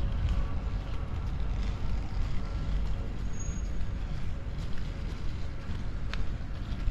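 Steady low rumble of urban outdoor ambience, with one brief sharp click about six seconds in.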